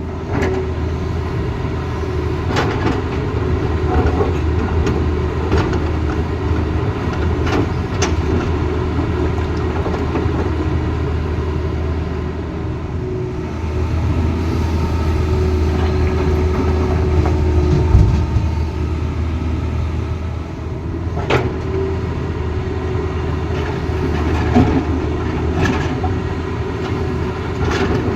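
Tata Hitachi Zaxis excavator's diesel engine running steadily under working load, with a few sharp knocks scattered through.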